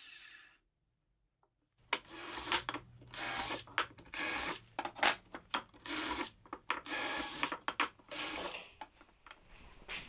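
Cordless drill run in a series of short trigger bursts, about half a second each, drilling or driving screws into softwood strips.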